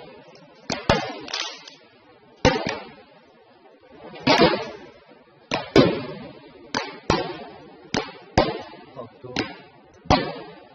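Fireworks bursting overhead: about a dozen sharp bangs at uneven intervals, each trailing off, with a longer crackling burst a little before the middle.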